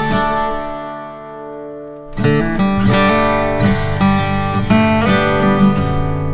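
Background music: acoustic guitar, plucked and strummed. It dies away to a soft held sound about a second in, then picks up again with quick notes about two seconds in.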